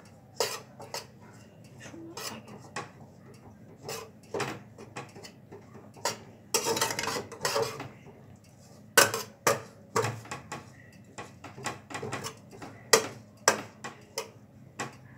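Flat metal spatula scraping and knocking against a black wok-style pan as a crumbly semolina mixture is stirred and broken up: irregular clinks, with a longer scrape about halfway through.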